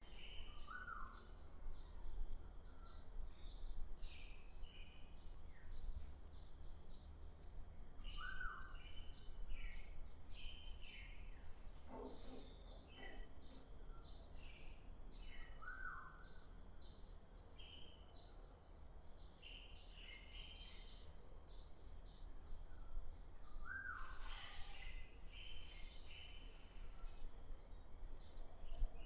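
Birds chirping steadily, with many short high chirps, and the same lower rising call phrase recurring about every seven and a half seconds, over a faint low rumble.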